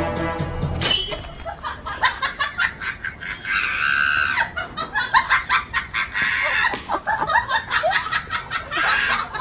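Chickens squawking and clucking in repeated calls as they scuffle with a dog. Music at the start cuts off about a second in.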